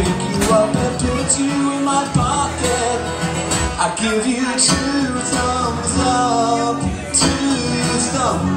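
A man singing while strumming an acoustic guitar, performed live.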